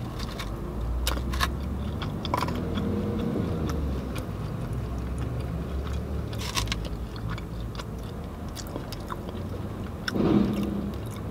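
Close-up biting and chewing of a breaded fried chicken wing, with irregular crunching clicks from the crispy coating over a low steady rumble.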